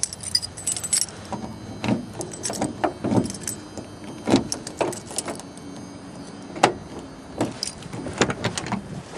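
Keys jangling on a ring and a key working in the pickup's driver's door lock: a string of short metallic clicks and clinks. Near the end the chrome door handle is pulled.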